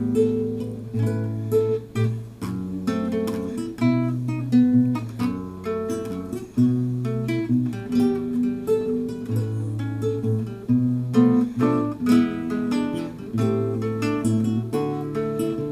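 Instrumental waltz on a plucked string instrument: a run of melody notes over sustained bass notes.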